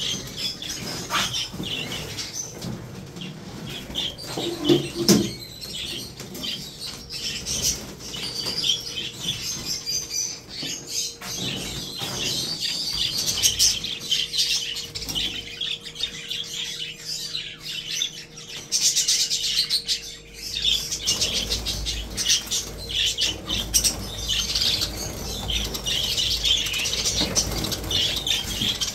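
A flock of budgerigars chattering and chirping continuously, with wings fluttering as birds fly about inside a wire flight cage.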